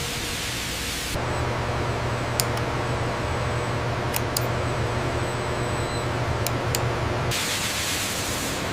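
Steady machinery noise: a hiss with a low hum beneath it and a few sharp ticks, changing abruptly about a second in and again near the end.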